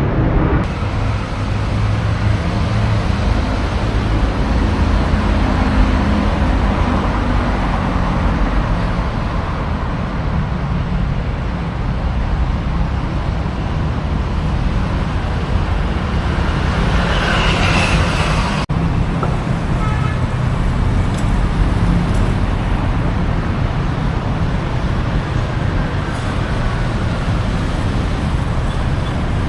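Street traffic: a steady rumble of engines and road noise from passing vehicles. About two-thirds of the way through there is a brief louder, higher sound, then an abrupt break.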